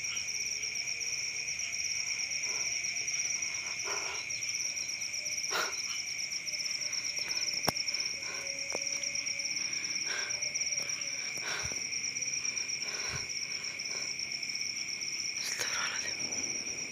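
A night insect chorus: a steady, unbroken trilling at two pitches, the higher one finely pulsing, with scattered short clicks and rustles over it.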